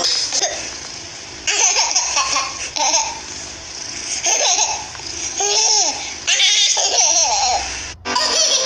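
An infant laughing hard, in repeated bursts of laughter.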